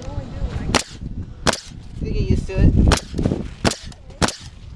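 Pneumatic coil roofing nailer driving nails into asphalt shingles: five sharp shots at uneven intervals, mostly less than a second apart.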